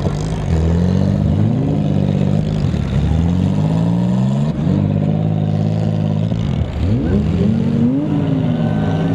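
Engines of several six-cylinder demolition derby cars running together and revving, their pitch climbing and falling as the cars accelerate and back off. Around seven seconds in, one engine drops sharply and revs back up.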